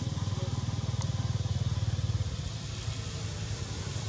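An engine idling steadily, a low hum made of fast, even pulses.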